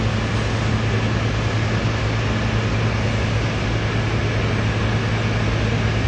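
A steady low mechanical hum over a constant wash of noise, unchanging throughout.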